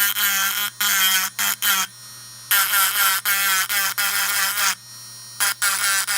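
Small motor of a USB rotary engraving pen running with a steady hum. Over it, the spinning bit screeches against the workpiece in bursts of a second or two, with wavering pitch, as characters are engraved. Between strokes only the motor hum remains.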